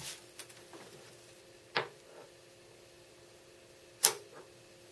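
Small steel washers sliding briefly across a wooden tabletop, then two sharp metallic clicks about two seconds apart, the second the loudest, as a steel washer snaps onto a stack of neodymium ring magnets.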